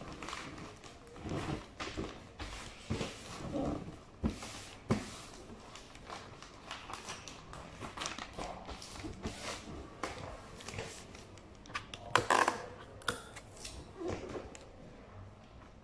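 Gift-wrapping paper rustling and crinkling as it is folded over a large cardboard carton, with irregular handling knocks and a few sharp clicks; the loudest crinkle comes about three quarters of the way through.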